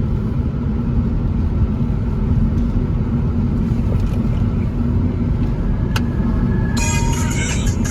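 Steady low rumble of a car driving at speed, road and engine noise. Near the end a brighter sound with quick sharp ticks comes in over it.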